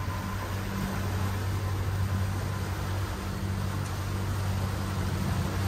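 Steady low engine hum with an even hiss over it: a boat's motor running.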